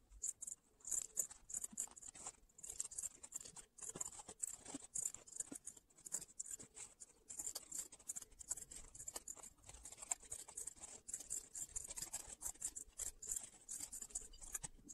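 Scissors cutting a printed fabric doll panel along its dotted lines: many short snips in quick succession.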